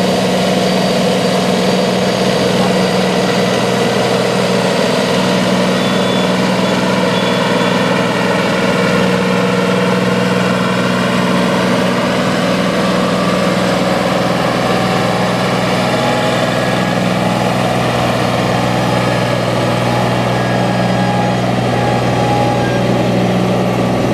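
Small John Deere tractor's diesel engine running steadily under load at an even pitch, pulling a weight-transfer sled.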